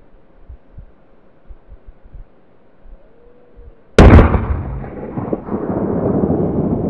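A firecracker goes off under an upturned enamel cooking pot about four seconds in: one sharp, very loud bang that blasts the pot away. A loud rushing noise follows and slowly dies down.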